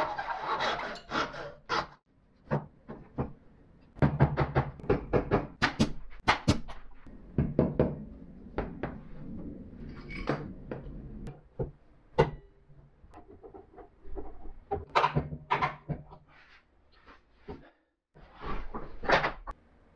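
Brass-backed hand saw cutting a bamboo strip with quick rasping strokes for about the first two seconds. After that come scattered knocks and clatters as bamboo panels and metal clamps are set down and tightened on the workbench.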